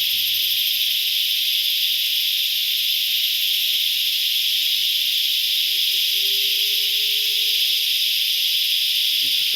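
Cicadas (chicharras) in full chorus: a loud, steady, high-pitched buzzing drone that never lets up.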